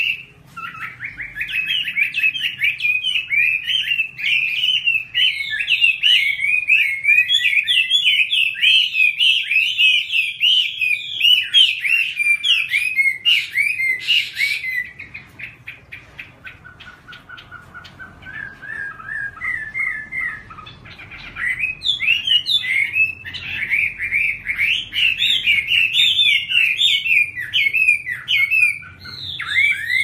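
Chinese hwamei (Garrulax canorus) singing a long, fast run of varied whistled phrases. About halfway through the song turns softer and lower for several seconds, then comes back loud and fast.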